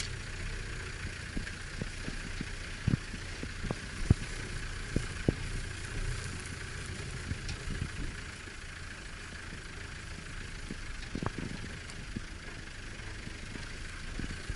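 A vehicle engine idling steadily, with scattered sharp clicks and snaps over it.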